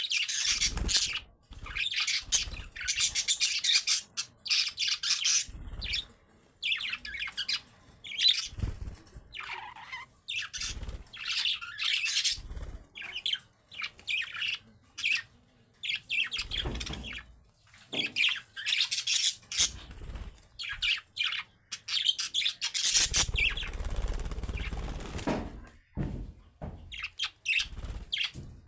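Budgerigars chirping and chattering in bursts of rapid, high warbling calls with brief pauses, with occasional wing-flapping or low bumps.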